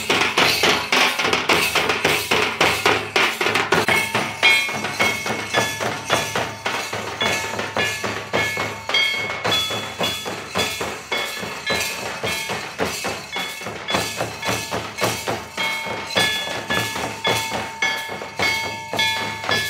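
Santal folk dance music: hand-played drums beating a fast, steady rhythm, with a high melody of short held notes joining from about four seconds in.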